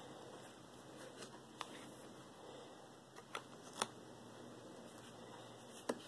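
Tarot cards being handled and laid down on a cloth, with a few faint clicks and taps as cards are turned over, over quiet room tone.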